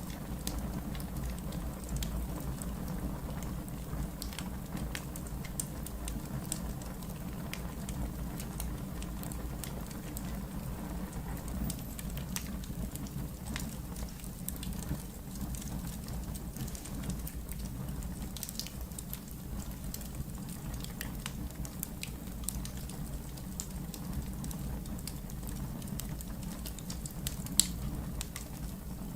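Wood fire burning in a fireplace: a steady low rush with scattered crackles and pops, and one sharper pop near the end.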